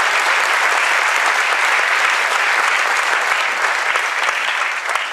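Audience applauding steadily and loudly in a theatre, the clapping dying away near the end.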